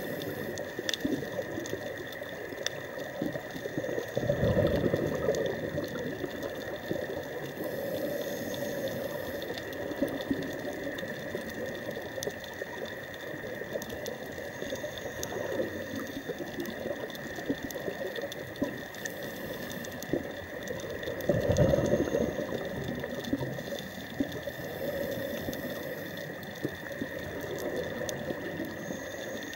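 Underwater ambience heard through a diver's camera housing: a steady watery hiss with fine clicking, and the diver's exhaled regulator bubbles gurgling past in louder surges, most strongly about four seconds in and again past the twenty-second mark.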